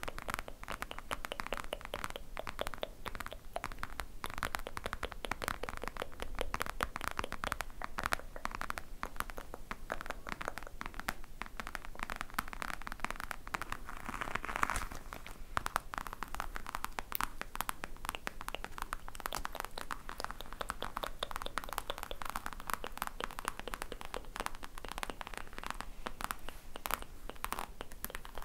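Fingernails scratching and tapping on a glossy crocodile-textured case, close to the microphone, making a continuous run of dense, crisp clicks and scratches.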